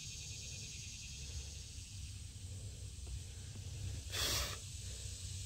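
A short, sharp breath out by a person about four seconds in, over a quiet background of steady low rumble and high hiss.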